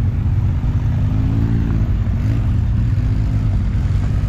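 Off-road vehicle engine running while under way, its pitch rising and falling slightly over a heavy low rumble.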